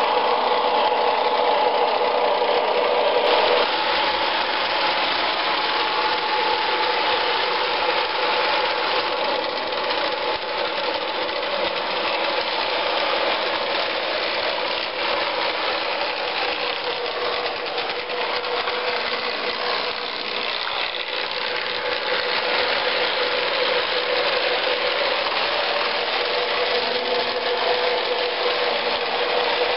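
MTH O gauge model diesel locomotive running on the layout, its onboard DCS sound system playing a steady diesel engine sound over the whir and clatter of the model's motor and wheels on three-rail track.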